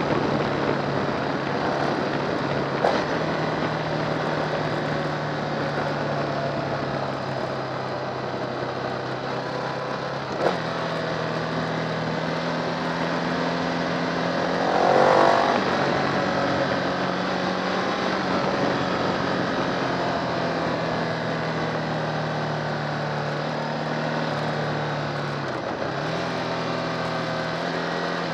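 Motorcycle engine running on the move, heard from the bike itself, its pitch stepping up and down a few times, over a steady rush of wind and road noise. There is a brief louder rush about halfway through.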